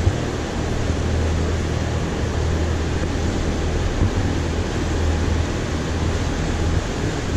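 Steady low engine hum under constant rushing noise from a moving vehicle, with no change in pitch or level.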